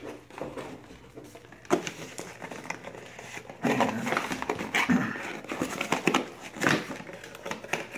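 Cardboard packaging being handled and pulled open: irregular rustling, scraping and tapping of box flaps and inserts, busier in the second half.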